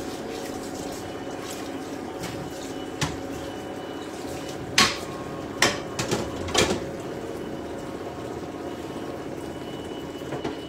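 Linguine cooking in a thick tomato-and-lobster sauce, bubbling steadily in a wide stainless pan as the sauce reduces and the pasta absorbs it. A few sharp clicks stand out over the bubbling, the loudest about five seconds in, with a quick cluster just after.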